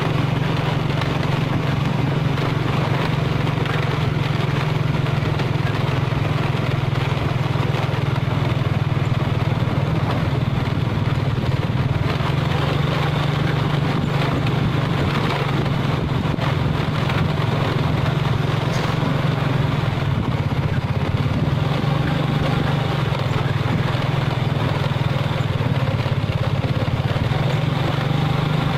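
Vehicle engine running steadily at road speed, a constant low hum under rough road and wind noise.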